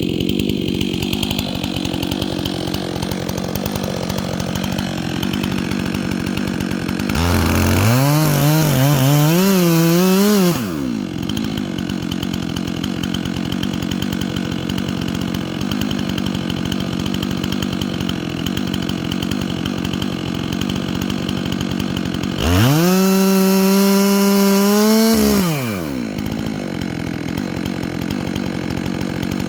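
Chainsaw idling steadily, revved up twice to a higher, wavering pitch for about three seconds each, roughly a quarter of the way in and again about three-quarters through, dropping back to idle each time.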